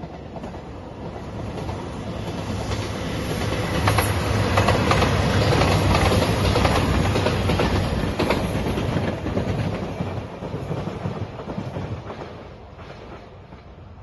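JR Shikoku 2700 series diesel limited express train passing: its engine hum and wheel noise grow louder, peak with a run of wheels clacking over the rail joints, then fade as it moves away.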